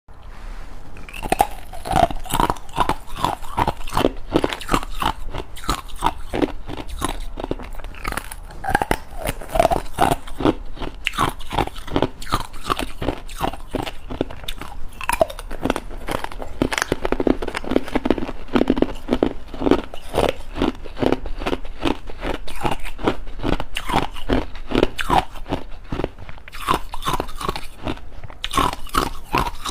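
Ice being bitten and chewed close to the microphone: crisp crunches, several a second, one after another without a break.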